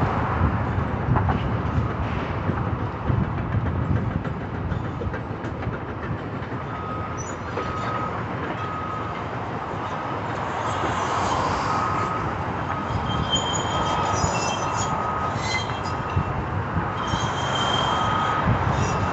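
Heavy demolition machinery rumbling steadily. About a third of the way in, a reverse alarm starts beeping at an even pace, and high metal squeals come and go.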